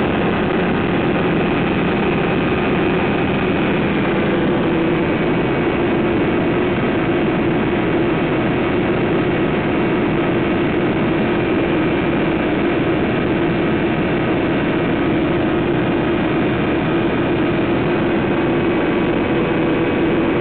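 Pou-du-Ciel ultralight aircraft's engine and propeller running steadily in cruise flight, mixed with rushing air, as heard from the open cockpit.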